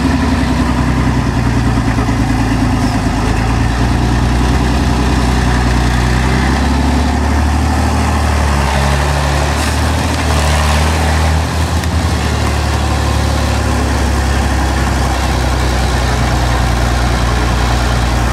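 A large vehicle engine idling steadily and loudly, its pitch shifting a little for a few seconds in the middle.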